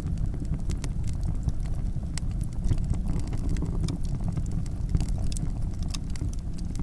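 Wood campfire burning, the logs crackling and popping in quick, irregular snaps over a steady low rumble.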